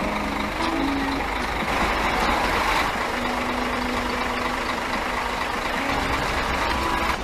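Scania K410 coach's diesel engine idling with a steady low rumble. A hiss swells about two to three seconds in, and a few short pitched tones sound near the start.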